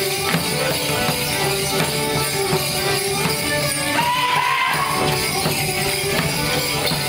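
Border morris band playing a dance tune over a steady beat, with jingling and evenly spaced sharp clacks from the dancers as they perform a stick dance. About four seconds in, a brief gliding call rises over the music.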